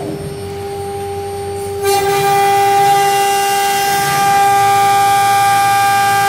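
Jieke 1325A CNC router's spindle running with a steady high whine. About two seconds in it gets louder and more higher tones join it.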